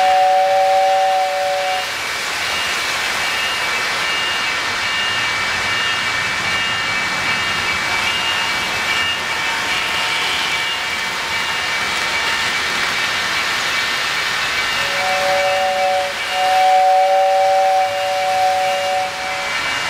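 O-gauge model trains running on three-rail track with a steady rolling hum and hiss. A two-note model train whistle sounds briefly at the start and again for about four seconds near the end, broken once, over a faint high tone that repeats steadily.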